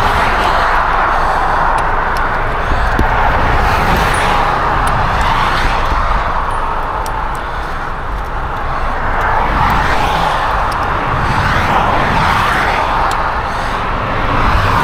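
Road traffic passing close by: a continuous noise of tyres and engines that swells and fades as vehicles go past every few seconds.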